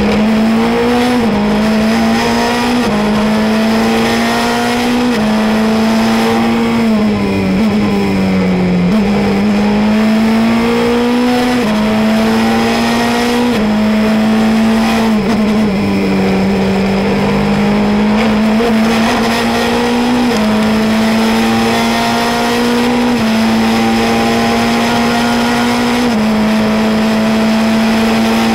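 Onboard sound of a Formula Renault 2.0 car's 2.0-litre four-cylinder engine at high revs on track. The note climbs through each gear and drops at every upshift. About seven seconds in there is a falling run of braking and downshifts, then it pulls up through the gears again.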